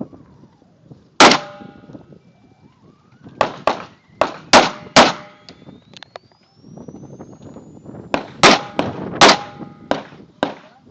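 Pistol shots fired in quick strings: a single shot, then about five rapid shots, a short pause, and another string of about five. Some shots are followed by a brief metallic ring, typical of bullets striking steel targets.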